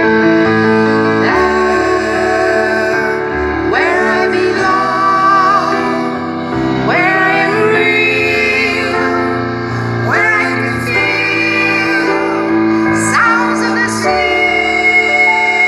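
A woman singing with a live rock band: phrases that swoop upward into long held notes with vibrato, over sustained instrumental chords.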